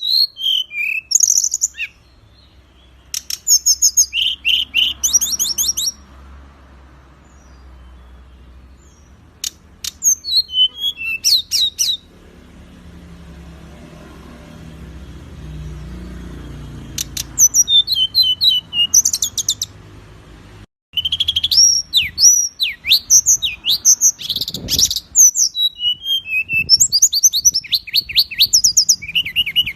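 Songbird singing in fast bursts of sharp, high chirps and rapid trills. The song pauses for several seconds in the middle, leaving a low hum, then the sound cuts out for an instant and dense song resumes.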